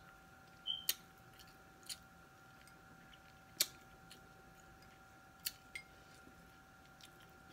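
A fork clicking lightly and irregularly against a small glass bowl of dipping sauce, with faint chewing, over a faint steady hum.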